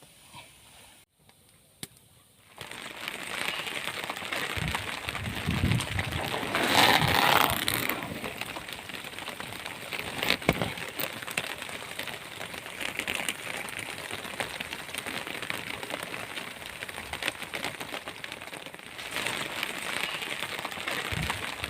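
Wood fire crackling steadily, many small pops and snaps, setting in after about two and a half seconds of near quiet and briefly louder about seven seconds in.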